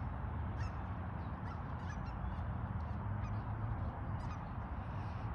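A large flock of waterfowl calling, with many overlapping short honks and quacks, over a steady low rumble.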